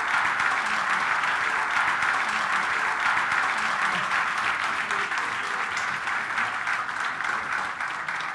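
Live audience applauding steadily, a dense patter of many hands clapping.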